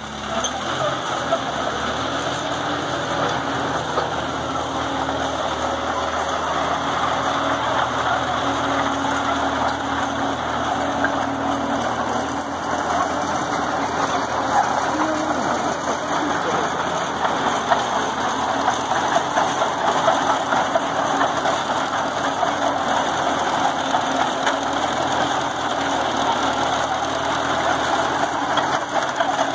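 Engine running steadily at an even speed.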